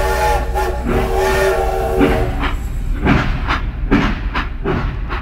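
Toy battery-powered steam locomotive's built-in sound effects: two long chord-like whistle toots, then rhythmic chuffing about two a second, over the steady hum of its running motor.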